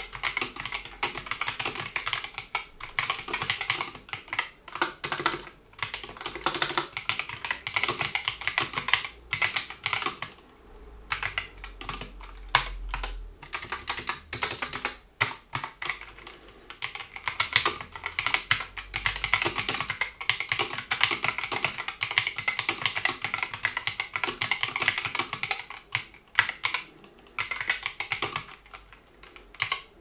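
Continuous fast typing on a GK61 60% mechanical keyboard fitted with Gateron optical Red linear switches: a dense clatter of keystrokes, thinning out for a moment about ten seconds in and again near the end.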